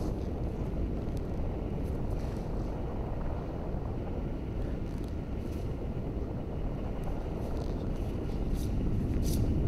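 A steady low rumbling noise, like a drone or wind, with faint scattered ticks near the end.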